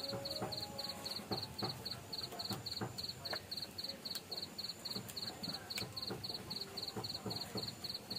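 Cricket chirping steadily, about four short high chirps a second, with scattered crackles and clicks underneath.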